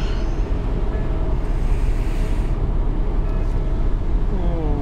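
Steady low rumble and wind noise on the open deck of a river cruise ship under way, the ship's running engine and the moving air blending into one continuous noise.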